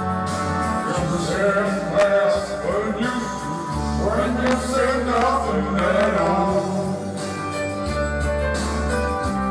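Karaoke: two men singing into microphones over a loud recorded backing track.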